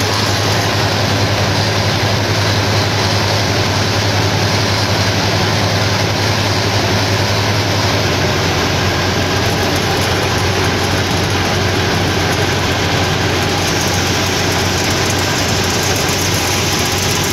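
Engine of a Thai-built 'kangaroo' paddy tractor running steadily and loudly as the tractor wades through deep mud in a flooded rice field.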